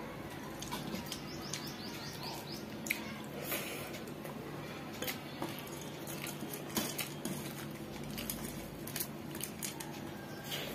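Eating by hand: fingers squishing and mixing rice with curry on a steel plate, with scattered wet mouth clicks and lip smacks from chewing.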